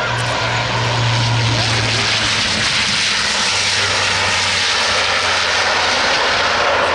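Twin turboprop engines of a Bombardier Dash 8 Q400 airliner as it touches down and rolls out: a steady loud rushing with a low propeller drone that drops slightly in pitch about three and a half seconds in.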